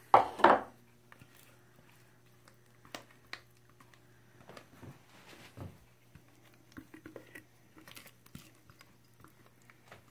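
A plastic food processor bowl clunks loudly twice as it is handled, then a spatula scrapes and taps softly against the plastic bowl, working out thick frozen yogurt.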